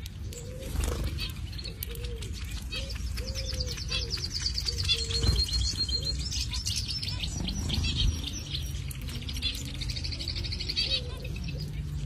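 Small finches chirping, with a rapid high-pitched trill running through most of the stretch and shorter lower calls repeating in the first half.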